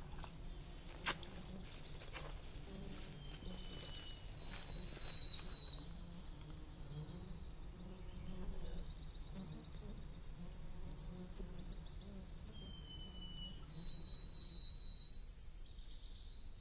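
Nashville warbler singing twice, about ten seconds apart, each song a run of quick high repeated notes dropping into a lower trill. A single sharp snap, like a footstep on a twig, about a second in.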